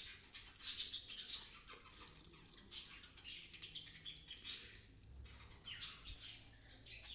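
Small birds chirping and squawking repeatedly, with the faint splash of milk being poured into a steel bowl of mashed food.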